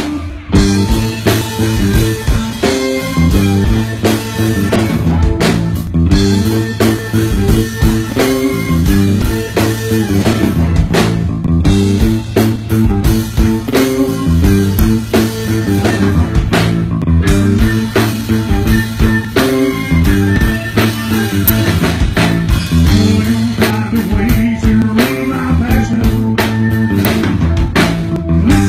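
Live blues-rock band playing an instrumental passage: electric guitar, electric bass and drum kit, with the full band coming in together at the start after a held chord.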